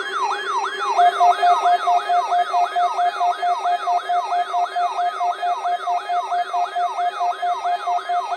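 Electronic siren-like yelp: a tone sweeping up and down about three times a second over a steady lower tone. A second, higher steady tone joins about a second in.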